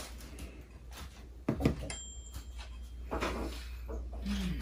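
A few sharp clicks and knocks from a tablet keyboard-cover's touchpad being pressed by a child, the loudest about a second and a half in. A short faint electronic beep from the game follows soon after.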